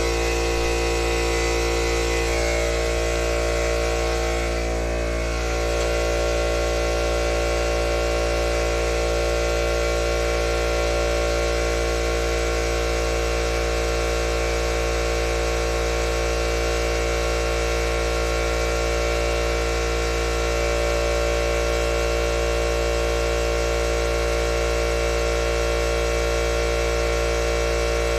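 Harbor Freight McGraw 8-gallon, 1.5 HP oil-free air compressor running steadily under load, its pump building tank pressure toward its 150 PSI cut-out.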